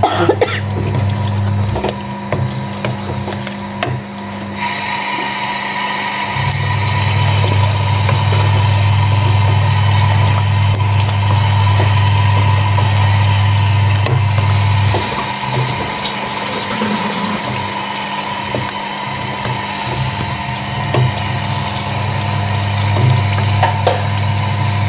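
Bottle gourd pieces frying in oily masala in a pan: a steady sizzle that gets louder about four seconds in, with clicks and scrapes of a wooden spoon stirring against the pan. A low hum cuts out and comes back several times.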